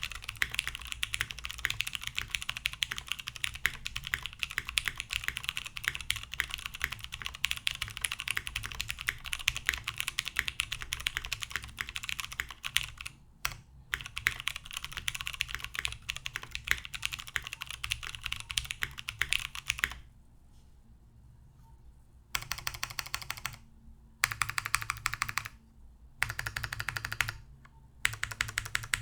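Typing on a top-mounted mechanical keyboard with lubed vintage Cherry MX Clear tactile switches on a full aluminum plate, with no foam dampening. Fast continuous typing with a brief break, then a pause of about two seconds followed by several short bursts of keystrokes.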